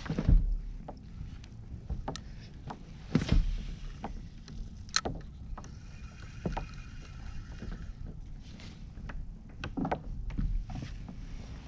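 Several knocks and bumps on a fishing kayak as the angler handles his rod and gear in the seat, over a steady low rumble.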